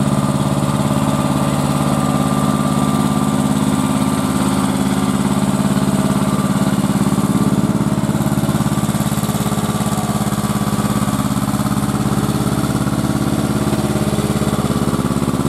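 Engine of a small vintage diesel tractor running steadily at even revs.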